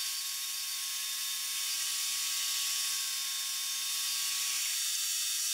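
Bandsaw running as it cuts through a thick walnut block: a steady hum with a high hiss. The hum stops about four and a half seconds in, leaving only the hiss.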